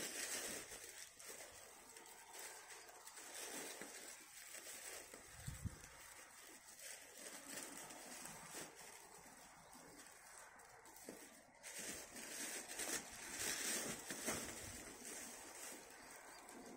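Clear plastic rubbish bag crinkling and pulled weeds rustling as they are pushed down into the bag by hand, in irregular bursts, loudest near the start and again later on.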